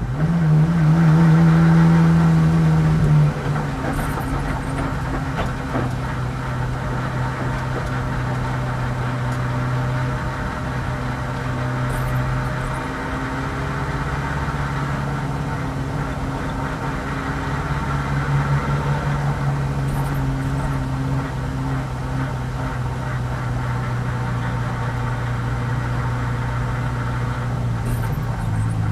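Ferrari 430 GT3's V8 engine, heard from inside the cockpit, running at low revs as the car rolls slowly. It is a little louder for the first three seconds, then settles to an even, steady note.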